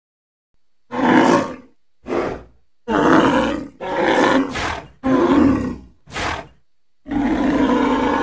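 Woolly mammoth creature sound effect: a series of about seven loud, rough roars starting about a second in, each under a second long with short gaps between them. The last roar near the end is longer.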